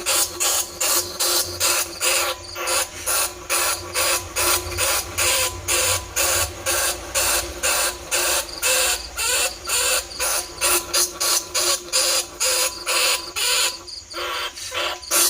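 Recorded squeaking calls of a bandicoot rat, short rasping squeaks repeating about three times a second, played as a lure call to draw rats in.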